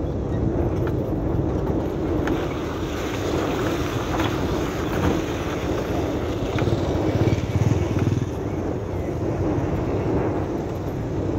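Steady rumble of a vehicle driving on an unpaved dirt and gravel road, with scattered knocks from the rough surface. About seven to eight seconds in it grows louder as two motorcycles pass.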